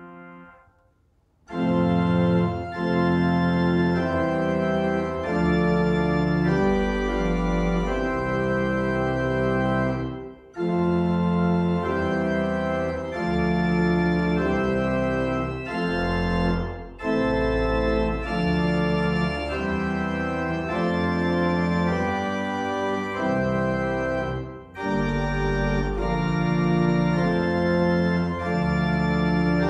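Pipe organ playing loud, full sustained chords over deep pedal bass notes, in phrases separated by brief breaks. It enters after a moment of near silence about a second and a half in.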